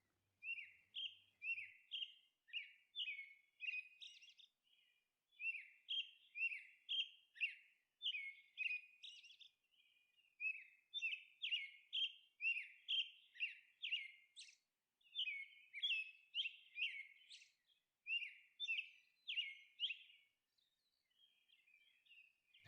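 Faint bird chirping: short, quick falling notes, about two a second, in runs of a few seconds separated by brief pauses.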